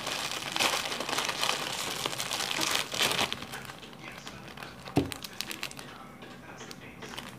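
Plastic cracker bag crinkling and rustling as it is torn open and a wrapped sleeve of crackers is pulled out, loud for about the first three seconds, then fainter scattered crackles, with a single thump about five seconds in.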